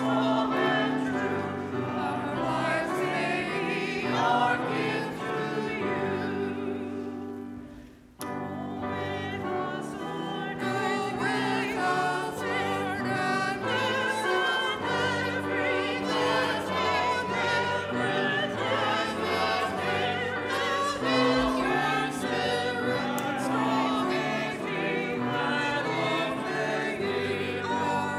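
Church choir singing a slow hymn with piano accompaniment, with a brief pause between phrases about eight seconds in.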